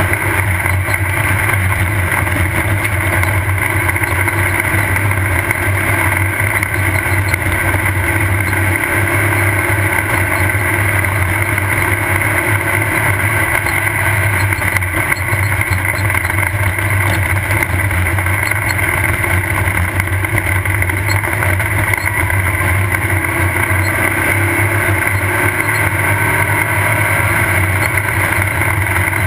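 Off-road race car's engine running steadily under load at racing speed, heard from on board over constant road and wind noise.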